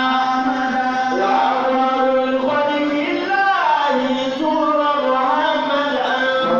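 A man's voice chanting into a microphone, amplified, holding long notes and gliding between them.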